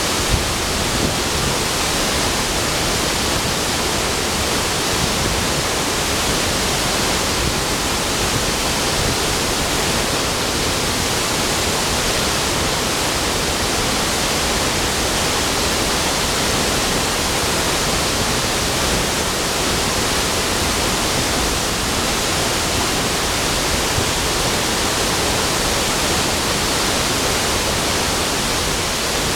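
The La Fortuna waterfall plunging into its pool: a steady, loud rush of falling water.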